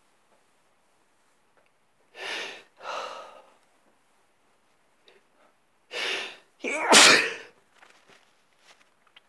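A man sneezing: two breathy bursts about two seconds in, then a sharp in-breath and a loud explosive sneeze about seven seconds in, followed by faint sniffing.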